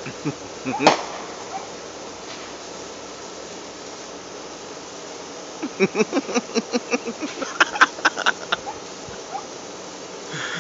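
Hand-held sparklers fizzing with a steady hiss. A run of short, voice-like bursts, like laughter, comes about halfway through.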